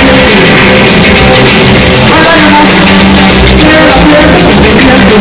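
Live rock band playing loud: electric guitar, upright double bass and drum kit.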